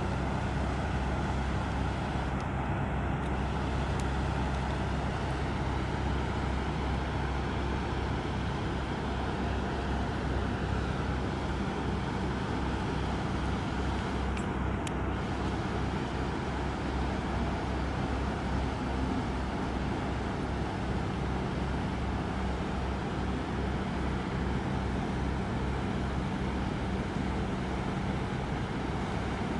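A boat's engine running steadily, a low drone with a pulsing rumble underneath, mixed with a steady rushing noise.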